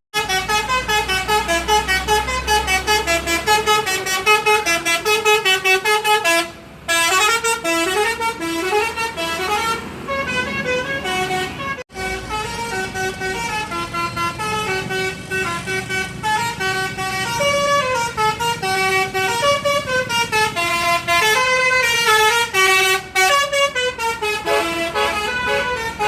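Basuri telolet bus horn playing a quick melody of short stepped notes, loud and continuous, with a brief break about six and a half seconds in and another momentary drop about twelve seconds in.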